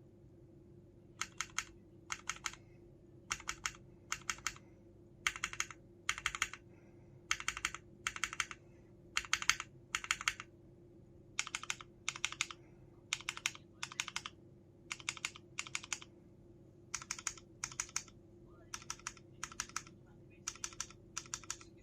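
Mechanical keyboard with Cherry MX Brown switches and DCS-profile keycaps being typed on, in short quick clusters of keystrokes about once a second with brief pauses between.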